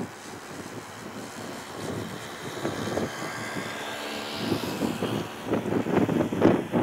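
Airliner passing, its engine noise swelling to a peak with a rising whine a little past halfway. Gusts of wind buffet the microphone near the end.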